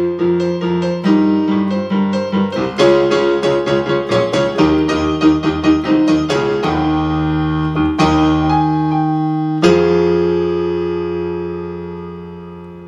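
Digital keyboard in a piano voice playing gospel-style chords with quick runs of notes. About ten seconds in, a final chord is struck and held, fading away.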